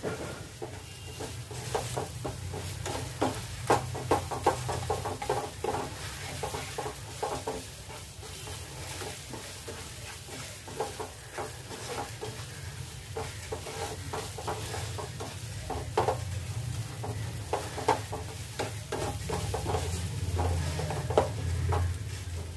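A wooden spatula scraping, pressing and tapping semolina and mashed potato around a non-stick frying pan in irregular strokes, over a light sizzle of ghee as the suji roasts until fragrant. A steady low hum runs underneath.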